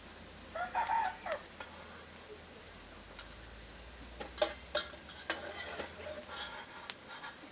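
A chicken calls once about a second in. Scattered sharp clinks and taps follow, like a utensil against a pan.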